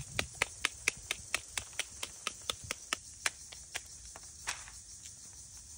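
A short wooden club knocking on dried riang (Parkia timoriana) pods laid on a hard block, about four sharp knocks a second, thinning to a few scattered knocks after about three seconds. The pods are being beaten to crack them open and free the black seeds.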